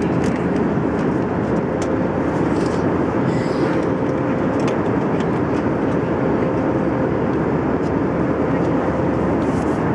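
Steady cabin noise of an airliner in flight: an even rush of engine and air noise with a thin steady hum running through it.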